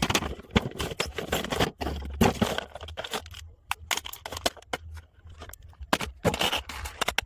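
Packaging being torn open and handled: dense rustling and tearing in the first few seconds, then a run of separate sharp clicks and short scrapes.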